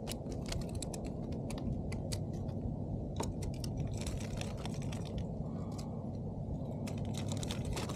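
Light, irregular clicking and rattling of a micro chatterbait and its hook being worked free of a small rainbow trout in a rubber landing net, over a steady low rumble. The clicks come in quick clusters, thickest in the middle and near the end.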